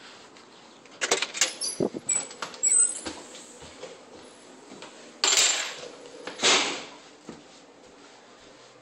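A house door being opened and shut: a quick run of latch and handle clicks and rattles, then two short, louder noises about a second apart as the door swings.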